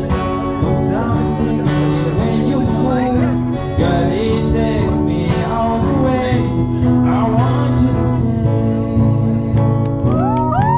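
A man singing live, amplified through a microphone, while strumming an acoustic guitar.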